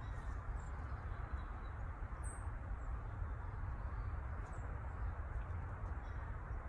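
Steady outdoor background rush with a fluctuating low rumble, and one brief high bird chirp about two seconds in.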